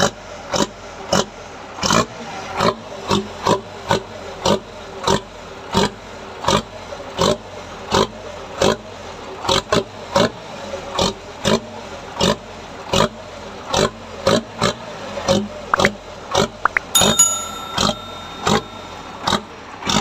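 Diesel truck engine idling through its tailpipe with a growling, snoring exhaust note. Sharp exhaust puffs come about twice a second over a steady running sound.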